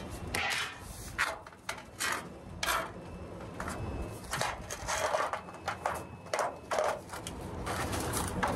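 Sheet-metal wall flashing being handled and slid into place against a brick wall and roof membrane: a string of irregular scrapes and rubs of thin metal.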